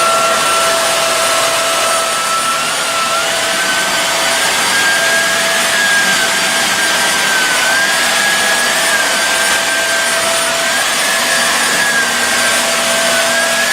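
Hoover WindTunnel Air bagless upright vacuum running on carpet: a steady rush of air with a motor whine that wavers slightly in pitch.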